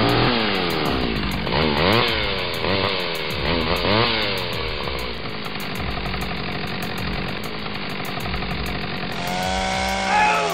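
Chainsaw revving up and down several times, its pitch dropping and climbing again with each rev, then running on at a steadier pitch.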